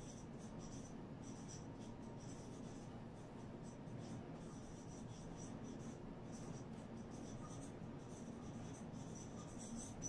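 Marker pen writing on a whiteboard: faint, short, irregular squeaky strokes one after another as letters are formed.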